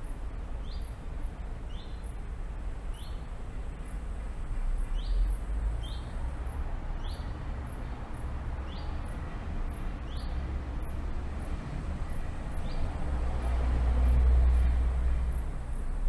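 Open-air city ambience heard from high above a street: a low rumble of wind and traffic that swells twice, with short high chirps about once a second.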